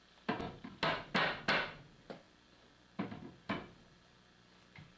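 Hammer blows on a wooden stair banister being knocked loose for removal: four quick knocks in the first second and a half, then two more about three seconds in.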